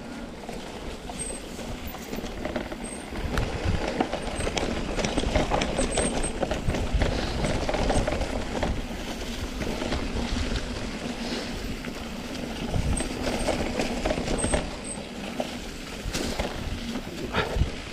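Mountain bike rolling down a rough dirt trail: tyres crunching and bumping over the ground, with the bike's frame and chain rattling over the bumps.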